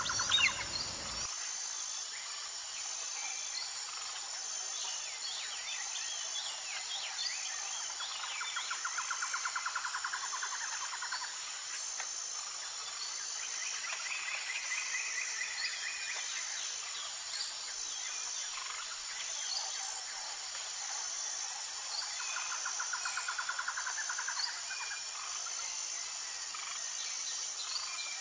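Insect chorus: a steady high chirring of crickets, with a rapid trill swelling up and fading a few times and scattered bird chirps.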